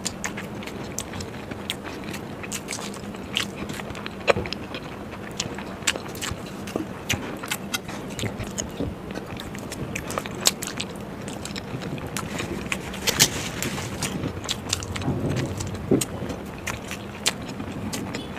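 Close-miked chewing of boiled eggs coated in masala, with frequent sharp mouth clicks and smacks.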